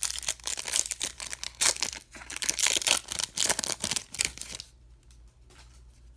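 A baseball card pack's crinkly wrapper being torn open and crumpled, a dense crackling that stops about four and a half seconds in.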